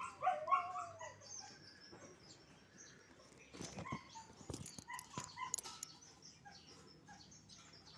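A dog whining, loudest in a drawn-out rising-and-falling whine in the first second, then short high whimpers, along with light taps and clicks.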